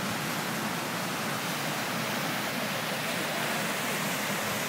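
Swollen floodwater rushing and churning past in a steady, unbroken rush.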